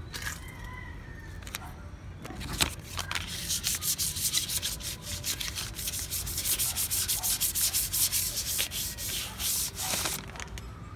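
A folded paper slip rubbed quickly back and forth over a paper sticker, burnishing it flat onto a sign. The scratchy rubbing strokes start about two and a half seconds in, come rapidly several times a second, and stop shortly before the end.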